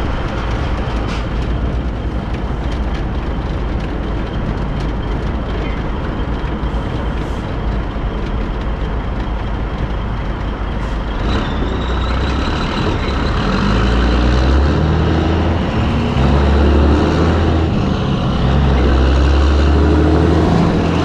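Peterbilt cabover truck's Caterpillar diesel running at a standstill, then pulling away about eleven seconds in: the engine revs up and steps through the gears, getting louder, with a steady whine rising over it.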